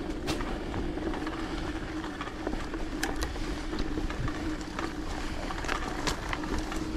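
Mountain bike being ridden: steady rolling noise with a constant hum, broken by scattered sharp clicks and knocks from the bike.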